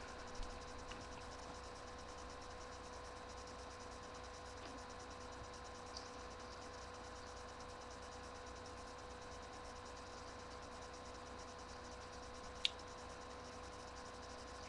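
Faint steady hum and hiss of room tone, with a sharp click about twelve and a half seconds in.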